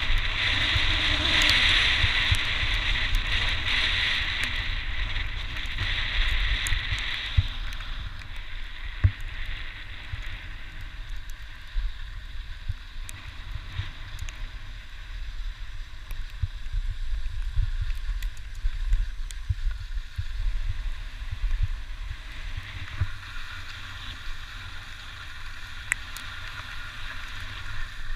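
Skis sliding and scraping on groomed spring snow, a hiss that is strongest for the first seven seconds or so, fades, and picks up again near the end, under a steady low rumble of wind buffeting a helmet-mounted camera, with scattered light knocks.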